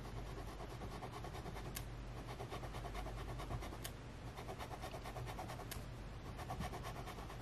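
Fine nib of a Kaweco AL Sport fountain pen scratching quickly back and forth on planner paper as an ink swatch is scribbled, with a few sharp ticks along the way.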